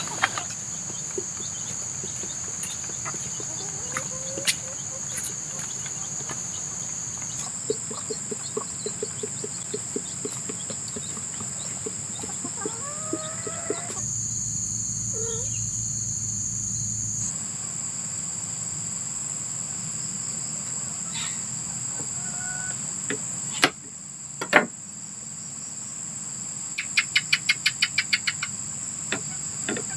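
Chickens clucking over a steady high chirring of crickets. There are two sharp knocks about two-thirds of the way through, and a quick run of about ten clicks near the end.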